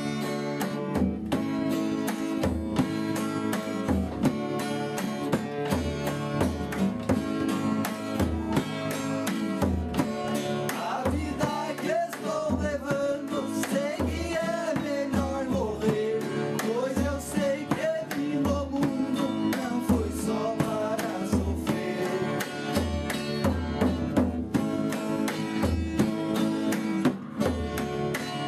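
Two acoustic guitars strummed together, with a hand-played drum keeping a steady low beat under the chords. A wavering melody line rises over them for several seconds in the middle.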